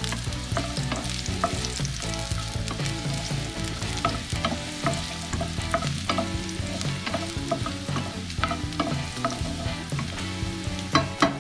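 Diced sweet potato sizzling in hot vegetable oil in a frying pan, stirred with a wooden spatula that clicks and scrapes against the pan. There is a sharper knock of the spatula just before the end.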